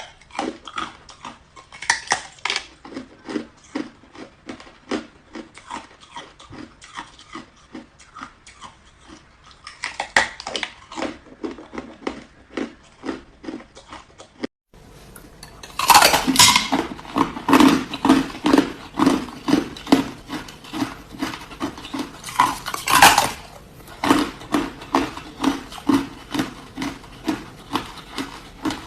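Hard ice being bitten and chewed close to the microphone: steady crunching at about two bites a second, with several louder cracking bites. There is a brief break about halfway through.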